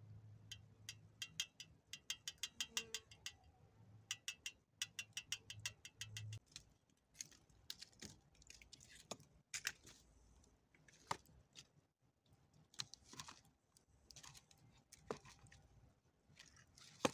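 A metal spoon clinking rapidly against a copper Turkish coffee pot (cezve) as the coffee is stirred, in two quick runs of clicks. After that come scattered knocks and crackles from a stick poking the campfire embers and a log being laid on the fire.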